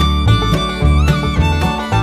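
Background music: a fiddle tune with sliding notes over a steady bass beat.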